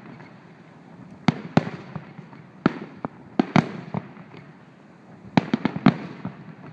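Aerial firework shells bursting: sharp bangs in three clusters, one about a second in, a second bunch around three and a half seconds, and a quick run of four near the end, each followed by a short rumbling tail.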